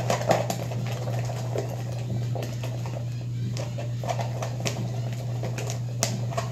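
A pencil stirring a watery glue mixture in a plastic tub, clicking and scraping against the plastic in irregular taps, over a steady low hum.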